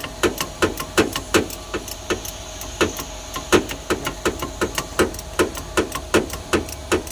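Even, rhythmic mechanical clicking, about three sharp clicks a second, each trailed by a short falling low tone, over a faint steady hum.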